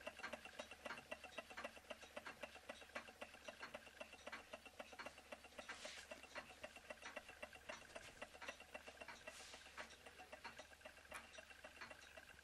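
Small Böhm Stirling hot-air engine with glass piston and cylinder running, giving a faint, rapid, even ticking.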